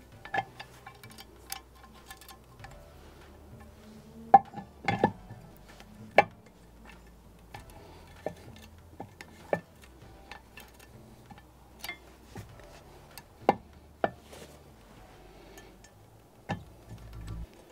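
Scattered clicks and knocks of a Nemesis Ultra wheel lock being worked on a car wheel, its hard parts tapping and clinking against each other and the rim as it is checked for play after another shim was added. The loudest knocks come about four to six seconds in.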